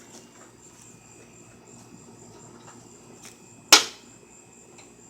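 One loud, sharp strike about three and a half seconds in: a tool hitting the broken-up microwave. Crickets chirr faintly throughout.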